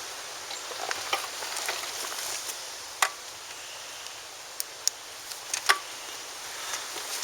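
A few sharp clicks and taps, one about three seconds in and a small cluster between four and six seconds, over a steady hiss.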